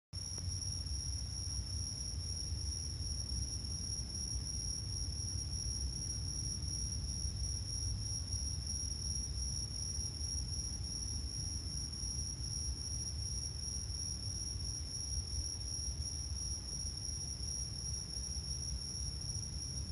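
Steady, high-pitched insect trilling, cricket-like and unbroken, over a constant low rumble.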